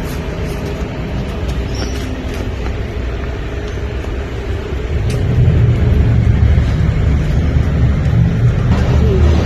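Steady low rumble of a CityCat ferry's engines heard on board, growing louder about five seconds in.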